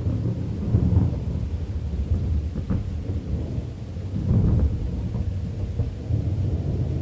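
Deep rolling thunder rumbling continuously, swelling about a second in and again around four seconds in, over steady rain.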